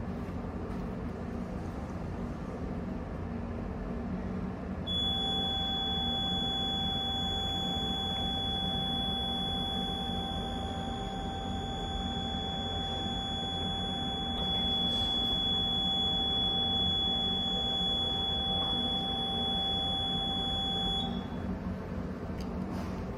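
Shipboard alarm sounding: one continuous high-pitched electronic tone with a fainter lower tone beneath it. It starts about five seconds in and stops about sixteen seconds later, over a steady low background hum.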